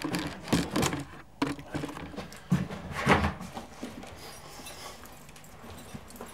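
Rustling and handling knocks as a sheepskin-lined jacket is pulled on and shrugged into place. A string of short bumps and rustles runs through the first three seconds, the loudest about three seconds in, and then the rustling gets quieter.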